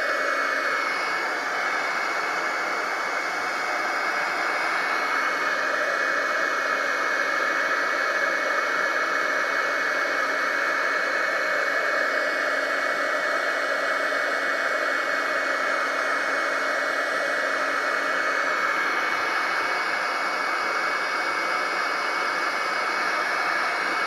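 Craft embossing heat gun blowing hot air steadily, a constant rush with a faint steady hum, melting white embossing powder on a stamped cardstock sentiment.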